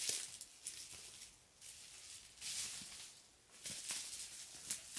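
Footsteps crunching on dry pine needles and leaf litter, an uneven series of crisp steps about one every half second to second.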